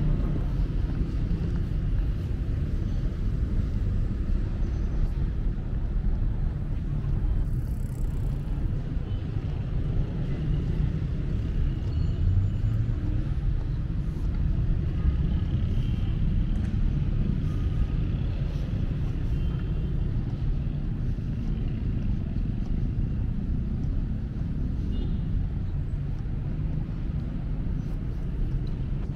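Outdoor city ambience: a steady low rumble of distant road traffic.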